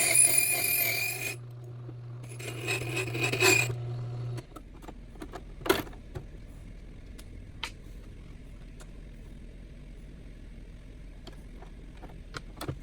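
Ilco 017 key duplicator's electric motor humming while metal grinds against the spinning cutter in two scraping passes. The motor shuts off about four seconds in, leaving a few light clicks and taps.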